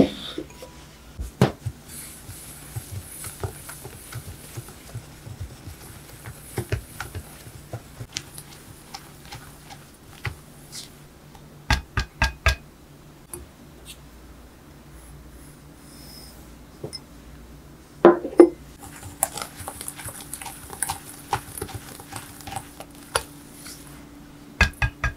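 Clinks and knocks of glass bowls and a utensil, with a soft scraping hiss, as potato starch and kinako are stirred together in a glass mixing bowl. A small glass bowl is set down on a wooden board at the start, and there are sharp knocks several times later on.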